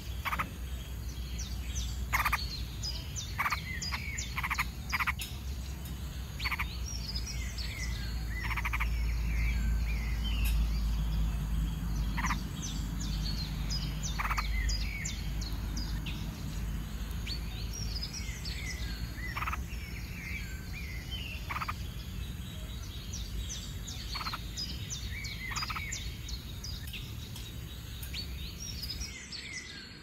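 Frogs croaking in short, separate calls about every one to two seconds, with clusters of quick, high chirping ticks and a low rumble underneath.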